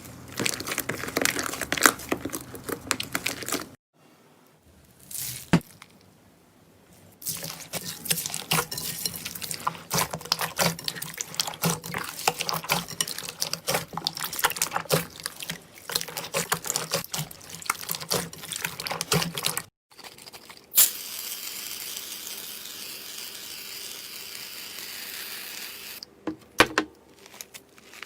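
Slime being squished by hand: dense runs of small crackling clicks, broken by short pauses, with a steady hiss for several seconds near the end.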